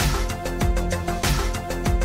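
Upbeat instrumental music with a steady drum beat and bass.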